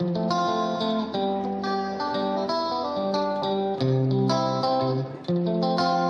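Background music: a guitar picking out a steady run of single notes, each ringing and fading.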